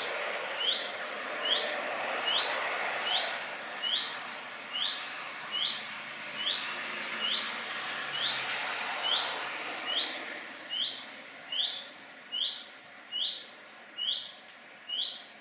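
A redstart, which appears to be a fledgling, repeating one short rising whistle about once every 0.85 seconds, monotonously and without change. A rushing noise underneath dies away about ten seconds in.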